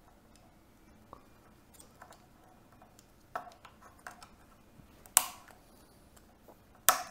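A small screwdriver prying at the plastic latching clips of a Panasonic WEG15929 universal wall socket. Light ticks and scrapes, then a sharp click about a third of the way in, then two loud sharp snaps a little past halfway and near the end as the clips pop off.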